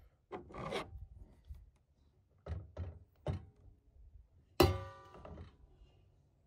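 Stainless steel camp cookware being handled: metal scraping and a few light knocks, then one loud ringing clank of metal on metal about two-thirds of the way through.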